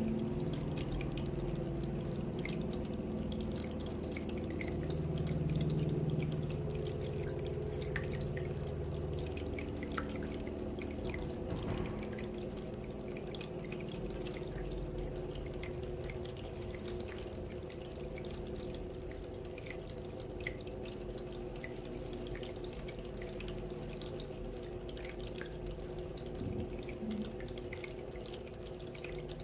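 Tabletop water fountain running steadily, water trickling and dripping into its basin with many small irregular drips, over a low steady hum.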